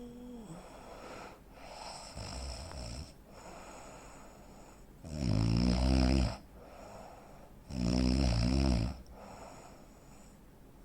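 Heavy snoring from a sleeping adult man, the kind of snoring that comes with sleep apnea. A few softer snoring breaths lead into two loud snores about two and a half seconds apart, then the breathing softens again.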